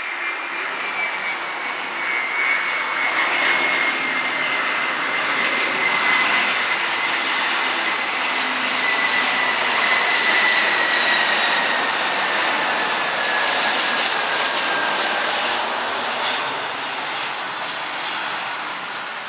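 Airbus A321 airliner's CFM56 turbofan engines at approach power as it flies by on final approach: a steady roar with a high whine that slowly slides down in pitch as the jet passes. It grows louder toward the middle and eases off slightly near the end.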